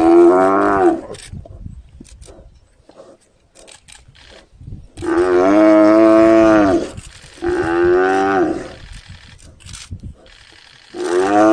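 Cape buffalo bellowing in distress as lions attack it: four loud drawn-out calls, each rising then falling in pitch. The second, about five seconds in, is the longest.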